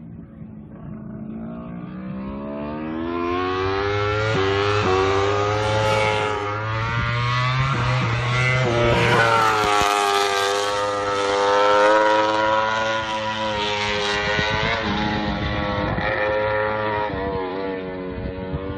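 Aprilia MotoGP racing motorcycle's V4 engine at full racing revs, climbing in pitch through a run of quick upshifts as it approaches. It is loudest a little past the middle, then eases off as it passes.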